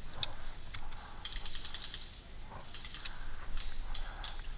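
Bursts of fast, light clicking and rattling from an airsoft rifle and gear as it is handled, with footsteps on dry forest floor.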